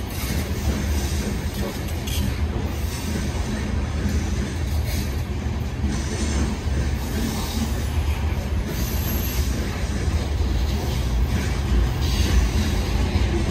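Freight train rolling past, a steady low rumble of railcars on the rails.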